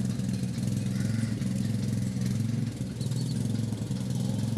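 An engine runs at a steady low pitched hum, unchanging throughout.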